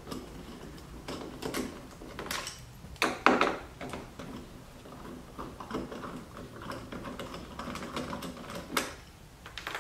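Screws being backed out by hand from the underside of a C7 Corvette's plastic rear fascia: a run of light, irregular clicks and scrapes from the tool, screws and plastic, with a sharper knock about three seconds in.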